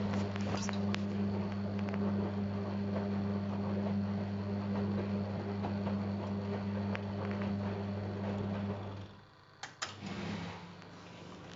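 Zanussi Jetsystem Turbodry ZWD 1000 washer-dryer running with a steady low hum and rattle. The hum cuts off about nine seconds in, followed by a couple of sharp clicks and a quieter steady sound.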